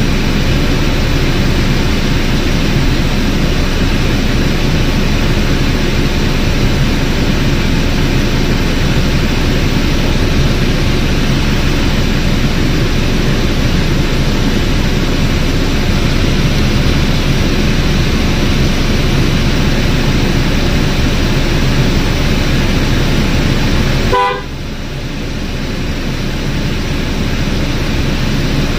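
A Land Rover's climate-control blower fan running hard, a loud steady rushing of air. About 24 s in it drops suddenly with a short tone, then builds back up gradually.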